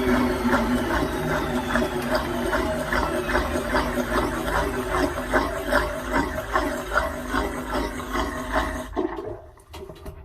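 Washing machine drum and motor running down after a 900 rpm spin, with a faint motor whine falling in pitch and a regular knocking, about three a second, as the drum turns. The sound dies away near the end.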